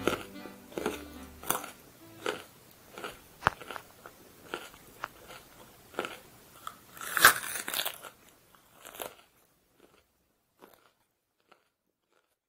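Crunching bites and chewing of a raw vegetable, a crisp crunch every half second to second. The loudest comes a little past the middle, and the chewing fades out about three-quarters of the way through.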